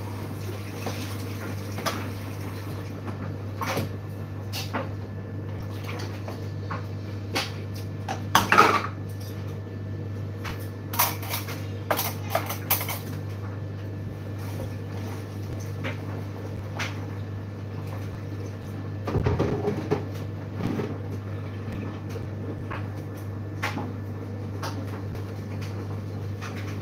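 Washing up at a kitchen sink: crockery, pans and cutlery clinking and clattering against each other and the drainer, in scattered sharp knocks. The loudest clatter comes about a third of the way in, with a quick run of clinks soon after, all over a steady low hum.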